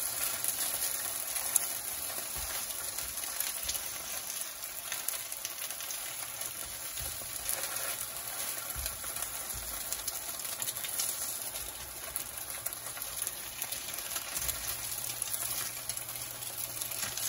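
Vegan mock duck frying in hot oil in a pan: a steady sizzle with scattered faint crackles.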